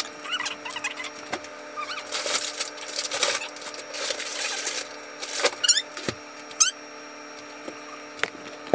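Plastic packaging crinkling and rustling as it is pulled and cut from a frozen block of chicken, then a few short high squeaks and a couple of sharp knocks, over a faint steady hum.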